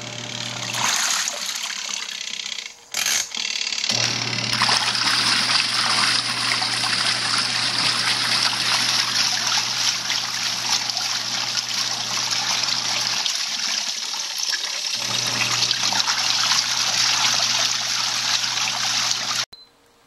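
Panda compact twin-tub washing machine's wash tub agitating a load of sheets in rinse water: water churning and sloshing over a steady low motor hum. The hum stops for about two seconds a little past the middle, then starts again, and the sound cuts off suddenly just before the end.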